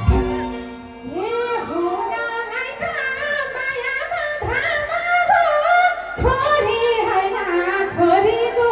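A woman singing a Nepali dohori folk verse into a microphone, her voice amplified. The instrumental music fades out over the first second, leaving her solo voice, which rises and falls in a melismatic folk melody.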